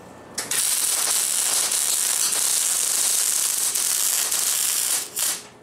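Electric arc welding: a steady hiss from the arc that starts about half a second in and stops near the end, followed by one short burst as a weld is laid on a forged steel tool.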